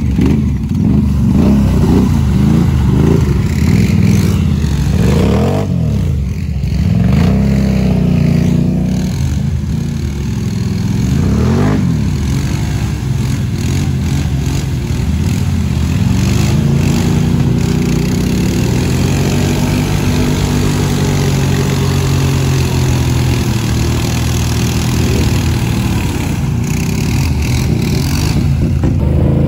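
ATV engine revving up and down repeatedly as the machine churns through a mud hole, with quick rises and falls in the first half and longer, slower swells later.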